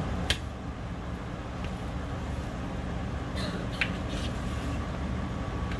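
Steady low background hum, with a few faint taps of a kitchen knife meeting a plastic cutting board as venison backstrap is sliced: one just after the start and a few more about three and a half seconds in.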